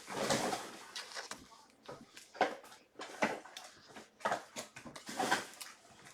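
Trading cards being handled and slid from the pack: a run of soft, irregular swishes and scrapes, about one a second.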